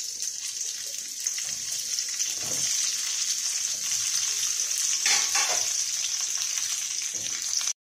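Cut flat beans and brinjal pieces sizzling in hot oil in a nonstick kadai as they are tipped in to sauté, a steady sizzle that builds. There are a couple of light knocks about five seconds in, and the sound cuts off suddenly just before the end.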